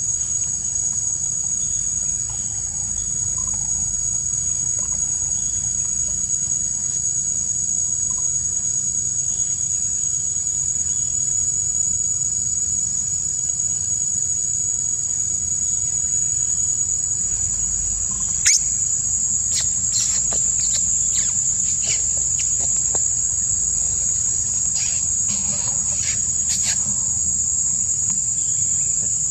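Steady, high-pitched chorus of insects trilling without a break, over a low rumble. From about two-thirds of the way through, a string of short sharp clicks and snaps.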